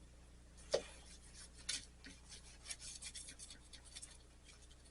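Faint handling of a soldered stained-glass rose being worked over with black patina: a light knock about a second in and another near two seconds, then a run of quick scratchy rubbing strokes.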